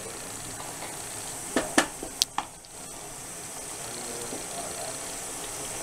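Minced meat (keema) sizzling steadily in oil and masala in a pan as it is fried with ground coriander, with a few sharp knocks of a wooden spatula against the pan between about one and a half and two and a half seconds in.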